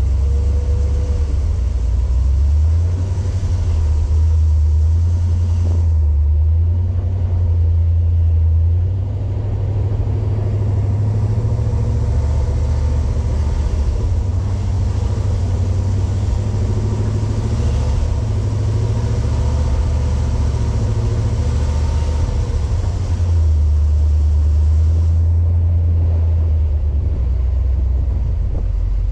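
Off-road vehicle's engine running under way, a steady heavy low rumble with a faint wavering engine note above it, dipping briefly about nine seconds in.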